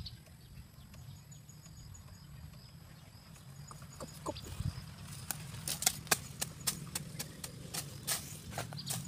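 Machete blade striking dry ground and leaf litter in an irregular series of sharp knocks, a few a second, starting about halfway through.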